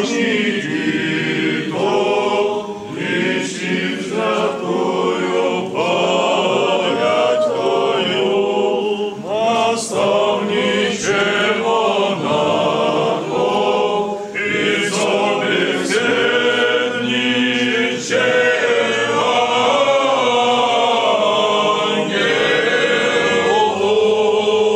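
Choir singing an unaccompanied Orthodox church chant.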